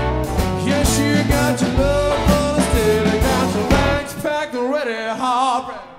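Blues-rock band music with singing. About four seconds in, the bass and drums drop out, leaving a wavering, bending melody line.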